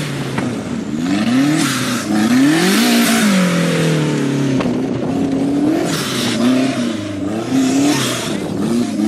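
Off-road race buggy's engine revving up and down repeatedly as it is driven hard over a dirt track, with one long drop in revs about three seconds in, over a rushing hiss.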